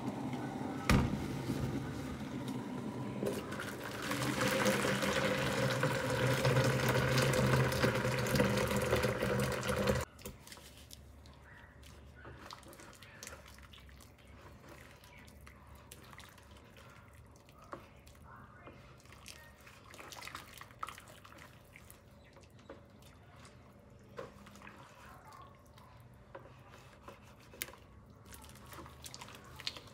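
Freshly boiled water being poured into a plastic bowl in a stainless steel sink: a steady splashing pour that grows louder about four seconds in and stops abruptly about ten seconds in. After that come faint scattered clicks and taps as dye is stirred into the water in the bowl.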